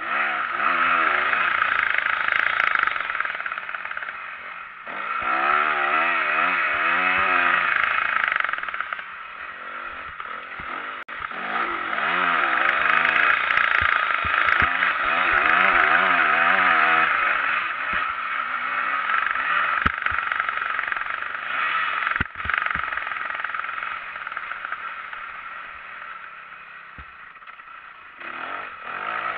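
Motocross bike engine heard from an onboard camera, revving hard and backing off in repeated bursts as it is ridden round a dirt track, over a steady hiss. It falls quieter for a long stretch past the middle and picks up again near the end, with a few sharp knocks along the way.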